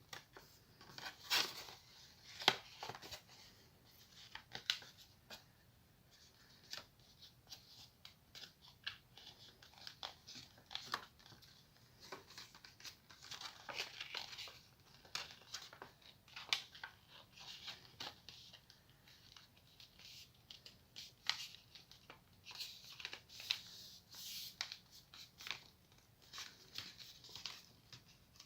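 Sheet of paper being handled, folded and creased by hand, with crisp rustling and sharp crackles at an uneven pace.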